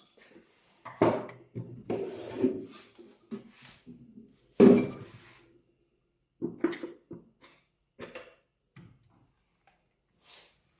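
A string of knocks and clatters as parts and panels of a cup sealing machine are handled and set down during repair, one every second or so. The loudest knock comes about four and a half seconds in.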